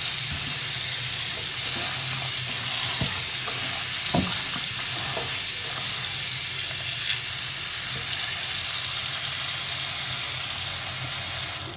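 Kitchen tap running in a steady stream into a steel bowl of cassava leaves in a sink, with a hand swishing the leaves through the water and splashing now and then. The running water cuts off suddenly near the end.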